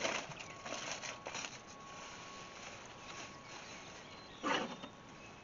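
Aluminium foil crinkling and a plastic oven bag rustling as a foil-wrapped rack of ribs is opened by gloved hands, in a few short bursts with the loudest near the end.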